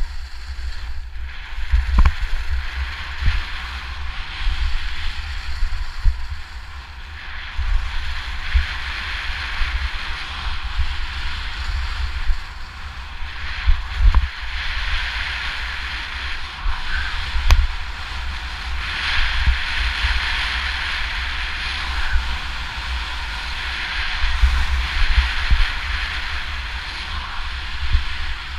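Skis sliding and scraping over hard-packed snow during a downhill run: a hiss that swells and fades, with a few sharp knocks. Heavy wind buffets the microphone throughout.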